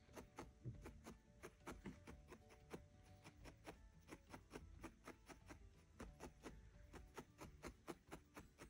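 Faint, quick pokes of a felting needle stabbing Corriedale wool into a wool felting mat, a steady stream at about four a second.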